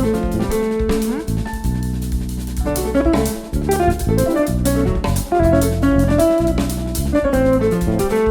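An instrumental jazz band playing live: melodic guitar lines over drum kit, electric bass and keyboards, with a steady beat.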